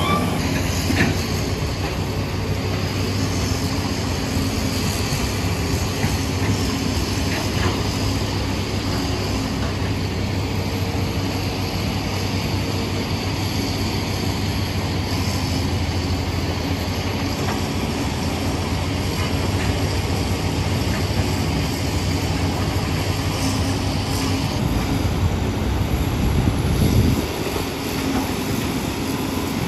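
Hydraulic excavator diesel engines running steadily under working load, with a few brief knocks scattered through.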